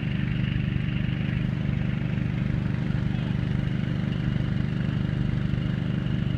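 An engine running steadily at a constant speed, an even low hum that does not change.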